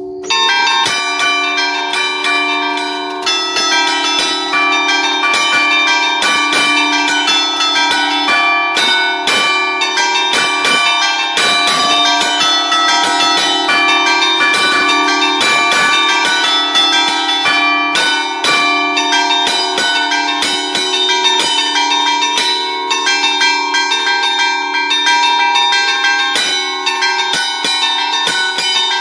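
A five-bell Barigozzi concerto of 1952, tuned in D4, played by hand from a lever keyboard in the Bergamasque allegrezze style: clappers strike the bronze bells in quick rhythmic patterns, several strokes a second. The bells are heard close up and loud, and the ringing starts abruptly at the very beginning.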